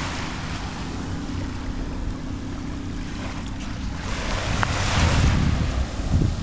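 Surf washing onto the beach, with wind buffeting the microphone as a steady low rumble. A wave swells louder about four seconds in.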